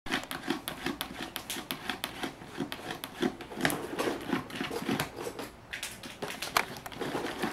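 A cat's claws scratching and scrabbling at the inside of a plastic wastebasket lying on its side, a quick, irregular run of clicks and scrapes.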